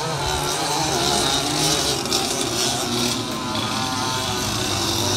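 Several dirt-track racing karts' small engines buzzing as they lap the track, their pitches overlapping and rising and falling as they pass.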